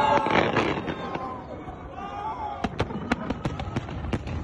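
Fireworks going off: a rapid run of sharp pops and crackles starting a little past halfway.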